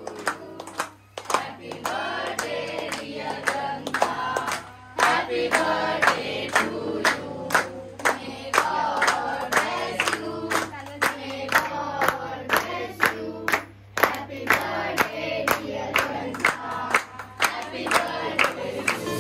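A group of people singing a birthday song together while clapping in time, about two claps a second.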